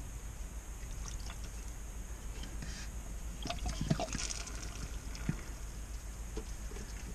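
Antifreeze trickling and splashing out of a disconnected heater hose while hands work the rubber hose and valve fitting, with a few small clicks and knocks, most of them around the middle.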